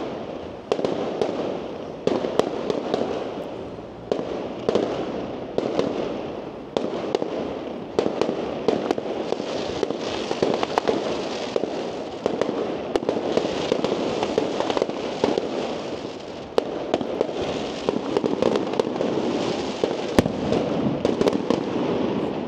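Aerial fireworks going off: sharp bangs, about one a second at first, each trailing off, then denser crackling bursts with bangs scattered through them.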